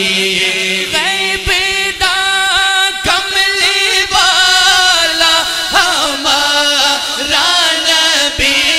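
Male singing of an Urdu naat, with the voice drawing out long lines whose pitch bends and glides, over a musical accompaniment.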